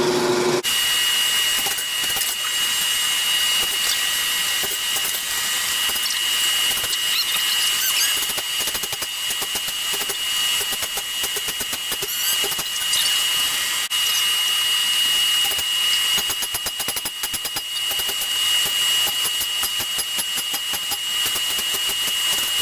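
A power tool running with a steady high-pitched whine over a dense crackling hiss.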